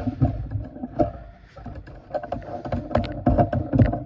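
Camera and tripod handling noise: irregular knocks, clicks and low thumps as the camera is moved and its tripod set up.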